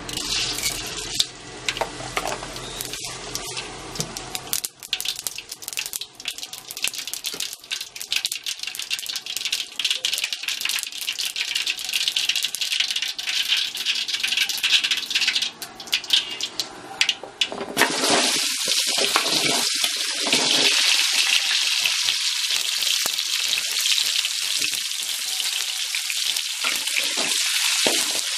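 Hot oil in a wok crackling and spitting with scattered sharp pops; about 18 seconds in, raw green mango slices go into the oil and it breaks into a loud, steady sizzle of frying.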